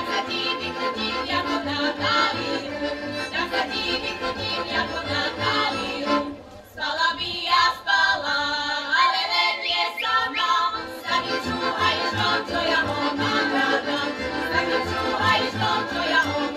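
Women's folk ensemble singing a Slovak folk song in chorus, with instrumental accompaniment. About six seconds in the sound briefly drops away, and a thinner passage follows before the full chorus returns.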